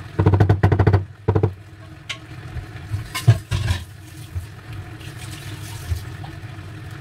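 Wooden spoon scraping and knocking rapidly against a ceramic baking dish of minced pork in the first second, with a short second scrape just after. A few utensil clatters follow about three seconds in, over a steady low hum.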